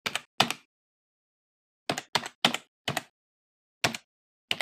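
Keyboard keystrokes clicking one at a time as the title is typed out, about eight in all, in short runs with pauses of about a second between.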